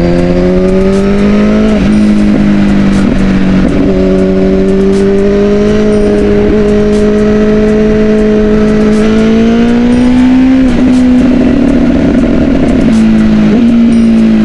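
Kawasaki ZX-10's 1000 cc four-cylinder engine pulling hard under acceleration. Its pitch climbs, drops at gear changes about two and four seconds in, holds steady for a while, then climbs again before more shifts near the end.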